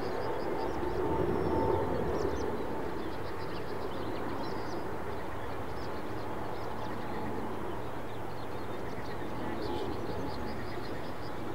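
Steady jet airliner engine noise, a broad rumble and hiss with a thin whine that fades about two seconds in, while small birds chirp over it.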